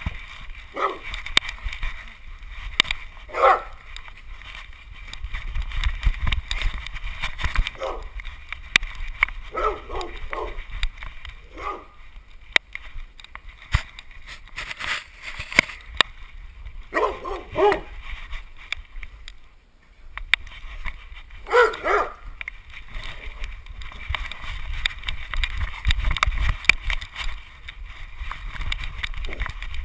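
A dog barking and yipping in short, scattered bursts, about six times, over the rubbing and knocking of a camera strapped to a dog that is moving around.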